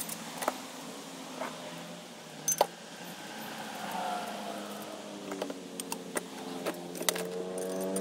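Light metallic clinks and clicks of bolts and steel rack pieces being handled and fitted together, the sharpest a double clink about two and a half seconds in and a run of quicker clicks near the end. Under them a steady low hum that grows louder, with more tones, in the last few seconds.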